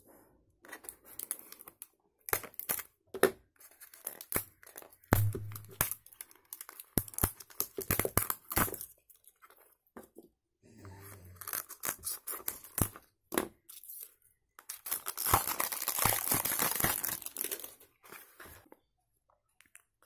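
Clear plastic shrink wrap being cut and torn off a small cardboard box: scattered crinkles and sharp clicks, then a longer, louder stretch of crinkling and tearing toward the end.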